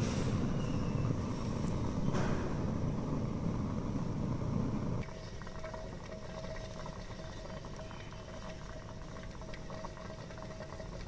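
Bunsen burner flame burning with a steady low rushing noise under a water bath. About five seconds in, the sound drops to a quieter, steady hiss.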